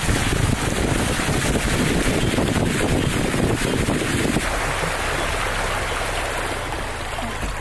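Vehicle driving along a flooded road: a steady rushing of tyres through water, with wind noise. The lower part of the rush eases about four and a half seconds in.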